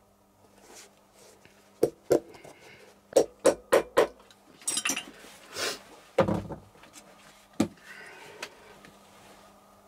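Cobbler's hammer tapping small nails into the heel top-piece of a shoe: two taps about two seconds in, then four quick taps at about three a second, a duller thud with some rustling handling noise, and one last tap near the end.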